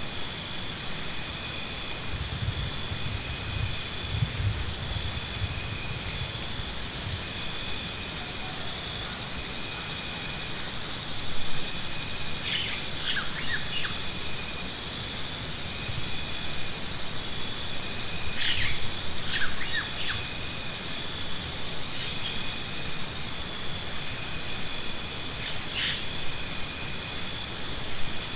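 Insects trilling: a high, rapidly pulsed song in long bursts that stop and start again every few seconds, with a few short bird chirps in between.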